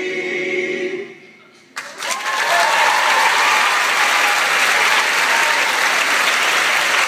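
The last held chord of a male a cappella group dies away about a second in. After a brief hush, the audience breaks into loud, steady applause, with a few shouts and whoops in the first moments.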